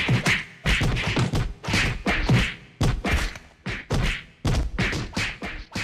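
A rapid series of whacks and thumps, about two or three a second, each short and fading quickly.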